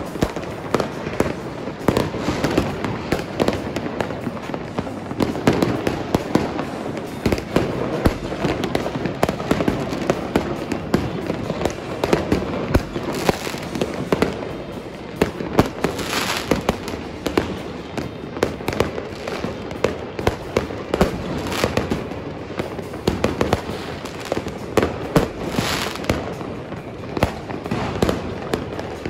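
Many fireworks and firecrackers going off at once across a city: a continuous barrage of overlapping bangs and pops with no pause, and louder bursts of crackling now and then.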